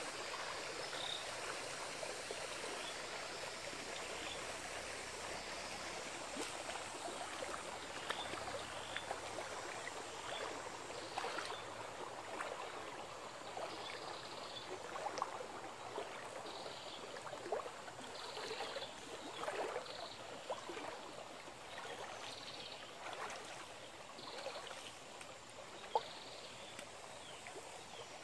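People wading through a shallow stream, the water splashing and sloshing around their legs with each step over the stream's steady flow. In the second half a short high chirp repeats every second or two, and one sharper splash or knock comes near the end.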